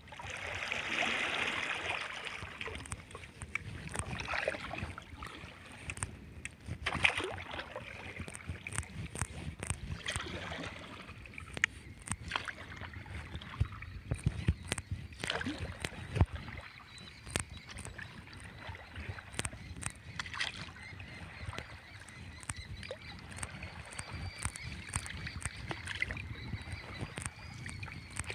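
Stand-up paddleboard paddle strokes: the blade dipping and pulling through calm water with irregular splashes and drips, and scattered sharp clicks and knocks throughout.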